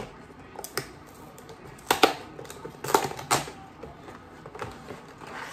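A cardboard collector box with a clear plastic insert being opened by hand: a few sharp crackles and clicks of card and plastic, about a second apart.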